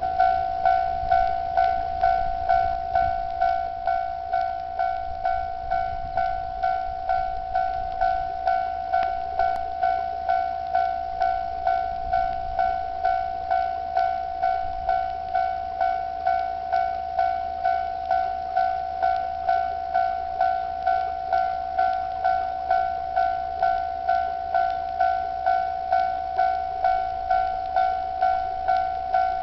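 Japanese railway level-crossing warning bell, electronic type, ringing in a steady repeating clang of about one and a half strikes a second. It starts at once and signals that the crossing is activated for an approaching train.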